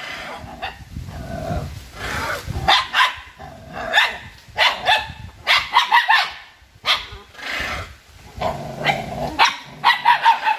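A dog barking repeatedly, in quick runs of several barks with short pauses between them.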